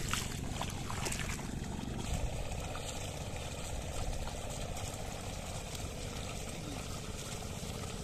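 Water sloshing and splashing as a pair of oxen drag a plough through a flooded paddy field, with a few sharper splashes in the first two seconds over a steady low rumble.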